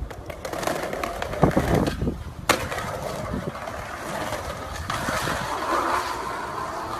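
Skateboard wheels rolling on street asphalt with a steady rumble. There is a louder clatter about a second and a half in and a single sharp clack of the board on the pavement about two and a half seconds in.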